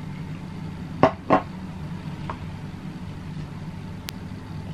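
Two sharp plastic clicks about a second in, then a fainter one, from handling a small food-coloring squeeze bottle and a plastic mixing cup, over a steady low hum. A brief light tick comes near the end.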